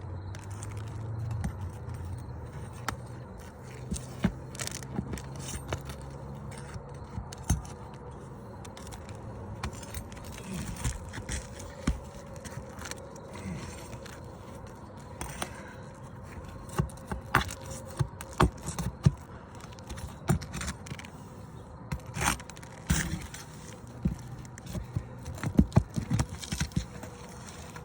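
Scattered clicks, taps and scraping of hand tools working asphalt shingles and nails loose on a roof, busier in the second half. A low hum runs under the first several seconds.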